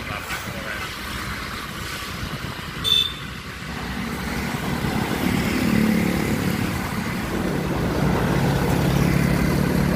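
Heavy diesel truck engine growing louder as the truck approaches and passes close by, over steady road traffic noise. A brief sharp high chirp sounds about three seconds in.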